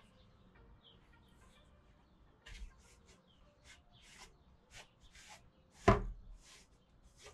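Microfibre cloth rubbing over a painted 3D-printed plastic helmet in a run of short, quick wiping strokes, with one sharp knock against the plastic about six seconds in.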